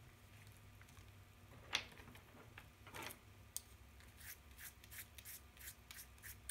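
Faint paper sounds: a single knock and a rustle, then a bristle brush swept quickly back and forth over a pastel-coloured paper, short dry scrapes about two or three a second in the last couple of seconds.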